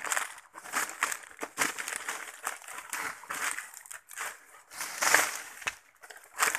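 Footsteps hurrying through dry leaf litter and undergrowth, leaves crunching and stems brushing at about two steps a second.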